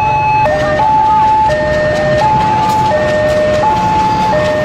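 A two-tone electronic warning alarm switching back and forth between a lower and a higher tone about every three-quarters of a second, over a steady low rumble from a passing diesel train.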